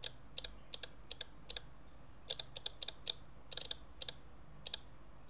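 Solenoid mechanism of a 1971 Soviet SB-1M/50 electromechanical impulse counter ticking about twenty times at an irregular pace, some ticks in quick clusters. Each tick is one 12-volt pulse as the lead is touched to the terminal, stepping the units needle on by one count.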